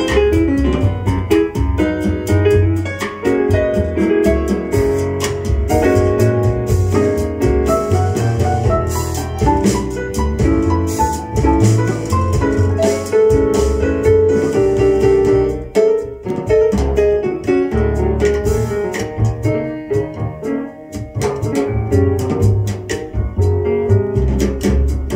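Small-group jazz with piano and drums, played from a vinyl record on a turntable through hi-fi loudspeakers in a room.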